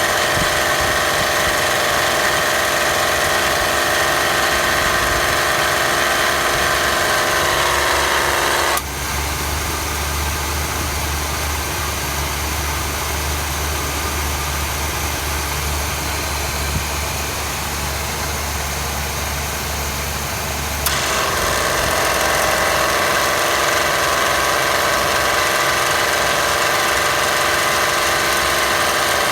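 General Motors A6 air-conditioning compressor on a running engine, cycling on its low-pressure switch. It runs with a steady whine, then its clutch lets go with a loud click about 9 s in. After about 12 s of steadier, lower engine hum, the clutch snaps in again with a click and the compressor whine returns.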